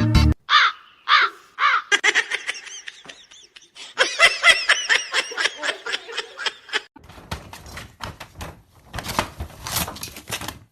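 A run of short, high, repeated animal calls, a few at first and then many in quick succession, followed for the last few seconds by clicking and rattling noises.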